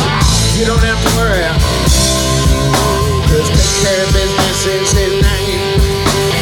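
Live rock band playing: drum kit and electric guitars, with a lead line that bends up and down in pitch over the steady beat.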